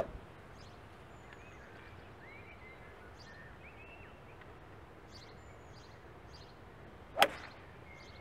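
Two sharp cracks of a golf club striking the ball, one right at the start and another about seven seconds in, with birds chirping faintly in between.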